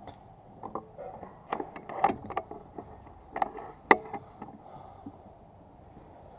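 PCP air rifle being handled: a run of light clicks and knocks, then one sharper, louder snap about four seconds in.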